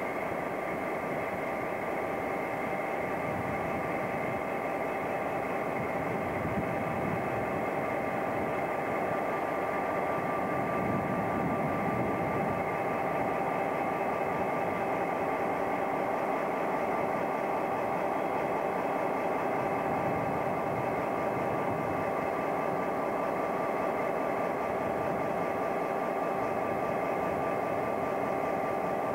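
Diesel locomotives idling, with a steady engine noise and several constant whining tones over it.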